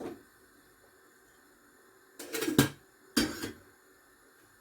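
Cooking utensils knocking against a pot: a brief knock at the start, then two short clattering knocks about two and three seconds in.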